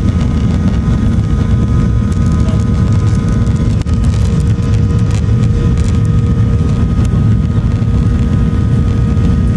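Boeing 737 jet engines heard from inside the cabin during the takeoff roll: a loud, steady low rumble with a steady engine whine over it.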